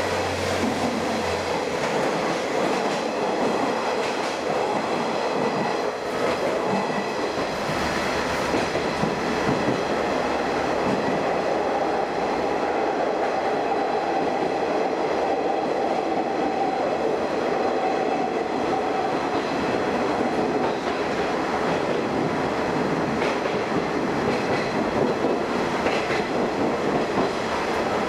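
KiHa 48-based diesel railcar running along the line with a steady rumble of wheels on rail and clicking over the rail joints. A steady whine rises above it for several seconds around the middle.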